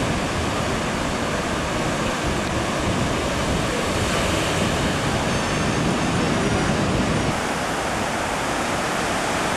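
Rough sea surf breaking on the shore, mixed with wind, as a steady rushing noise; the noise shifts slightly about seven seconds in.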